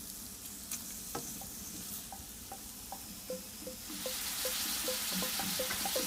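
Quartered morels and leeks frying in butter in a stainless steel pan, a steady sizzling hiss with a string of small repeated ticks that grows louder about four seconds in.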